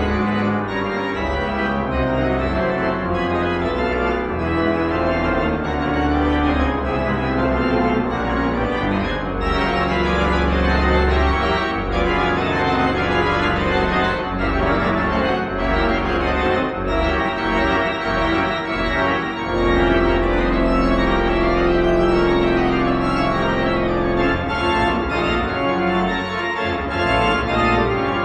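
Johannus digital church organ playing a toccata: quick running notes over full sustained chords, with long held deep pedal notes.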